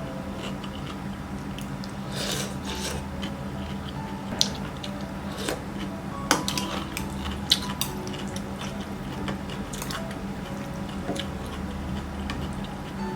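Close-miked eating sounds: chewing and mouth noises with scattered sharp clicks of utensils against a bowl, over a steady low hum.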